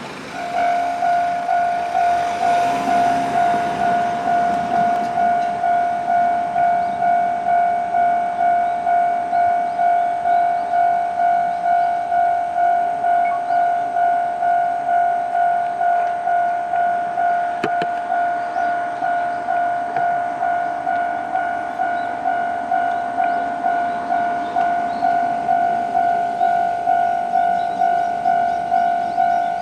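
Japanese railway level-crossing warning bell ringing: one steady electronic ding repeated evenly, a little under two times a second, starting about half a second in, signalling that a train is approaching.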